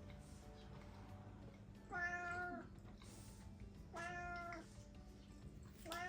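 Domestic cat meowing three times, about two seconds apart, each a short call, the last starting near the end.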